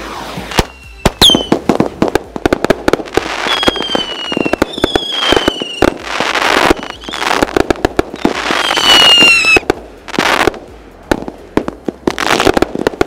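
Sushi Box 64-shot standard aerial finale set, four consumer aerial cakes, firing: rapid launch shots and bursts with crackling, and several whistles that fall in pitch.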